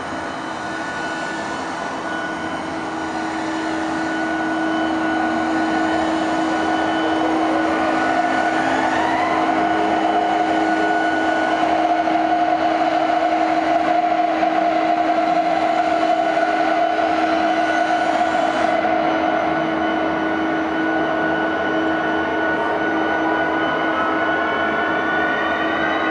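Ambient electronic drone: several held tones over a steady hiss, swelling over the first few seconds, with pitches sliding upward near the end.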